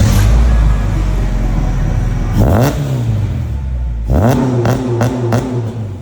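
Honda B20 non-VTEC four-cylinder engine running through a freshly welded Yonaka exhaust, idling and then revved twice, once about two and a half seconds in and again about four seconds in, with sharp blips after the second rev.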